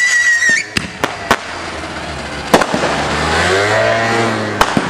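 Consumer fireworks going off: a whistling tone that falls slightly in pitch cuts off about half a second in, then several sharp bangs. A louder bang comes a couple of seconds later, followed by a hissing, crackling swell that rises and fades, and two more quick bangs near the end.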